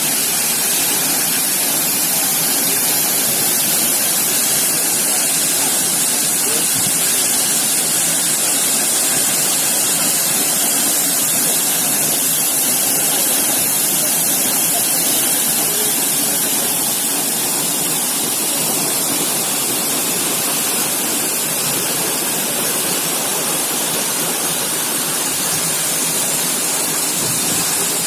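Waterfall: a steady, loud rush of falling water, with much hiss and spray in it.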